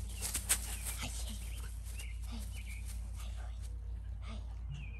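A steady low outdoor rumble with a few faint, short animal calls scattered through it, and some brief rustling near the start.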